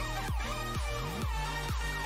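Background electronic dance music with a steady kick-drum beat, about two beats a second, under sustained synth chords and melody.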